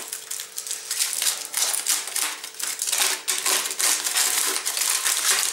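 Aluminium foil and plastic wrapping crinkling and crackling in irregular bursts as they are handled and unwrapped.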